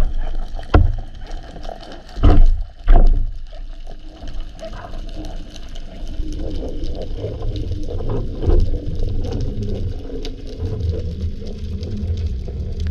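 Underwater noise picked up by a speargun-mounted camera: a low rumble of water moving past the housing, with faint crackling. There are a few heavy knocks in the first three seconds.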